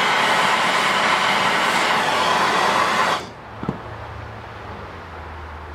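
Handheld gas torch flame hissing steadily as it heats an aluminum tank for aluminum brazing, then stopping suddenly about three seconds in as the heat is taken off so the brazing rod can be worked into the puddle. A single short click follows about half a second later.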